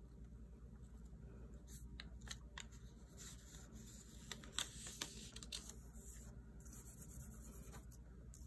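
Faint handling of paper and sticker sheets: soft rustles and a scattering of light clicks and taps, most of them in the middle few seconds.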